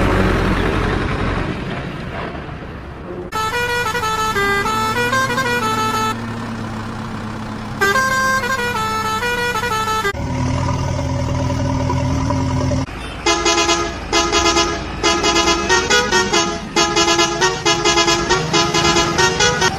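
Electronic toy-vehicle sound effects. A rumbling engine noise comes first, then short beeping melodies, a steady horn tone around the middle, and from about two-thirds of the way in a fast pulsing tune of several notes a second.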